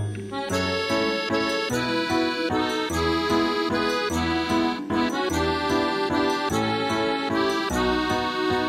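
Instrumental music: sustained held chords over a bass line, the notes changing about once a second.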